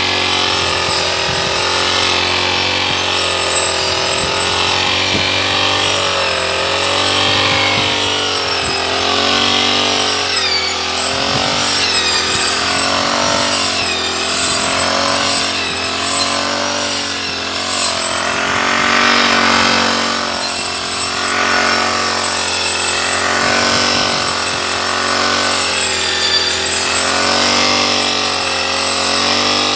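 Handlebar brush cutter running steadily as its blade cuts through tall grass, the engine pitch rising and falling again and again as it bites into the grass and clears it.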